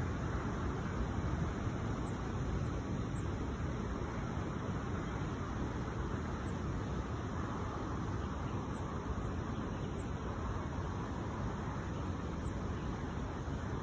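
Steady, even rumble of distant road traffic.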